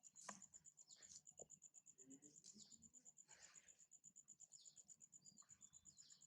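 Very faint ambience: a steady, rapidly pulsing high insect trill, with scattered soft clicks and a few brief high squeaks.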